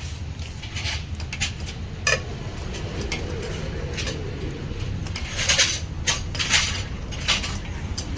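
Metal tools being handled, giving scattered sharp clinks and short metallic rattles, most of them bunched together in the second half, over a steady low hum.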